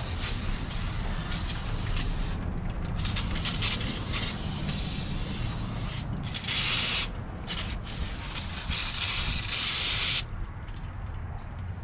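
Spray hissing onto the greasy brakes in bursts: a short burst about six seconds in and a longer one of about a second and a half near the end, with fainter brief hisses before, over a steady low rumble.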